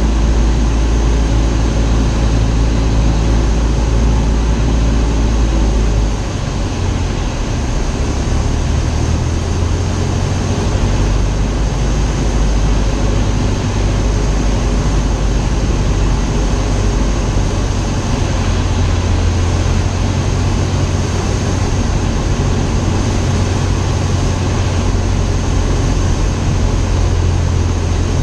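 Light airplane's piston engine and propeller droning steadily during a landing approach, with the engine note shifting about six seconds in.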